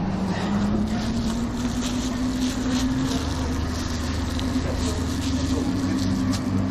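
Clear plastic food-service gloves crinkling as gloved hands rub and squeeze together, over a steady low machine hum.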